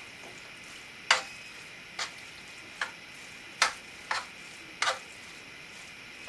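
A utensil knocking and scraping against a skillet while shredded spaghetti squash is stirred into a ground-beef mixture: about six short strokes, under a second apart, over a faint steady hiss.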